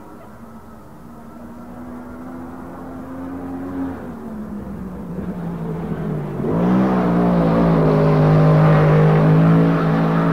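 Racing car engine running at high revs and growing louder; its pitch falls about four seconds in, and from about six and a half seconds in a louder, steady engine note holds.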